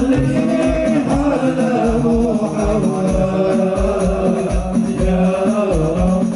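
Sholawat, Islamic devotional song, sung over frame drums beating a steady rhythm of about two beats a second.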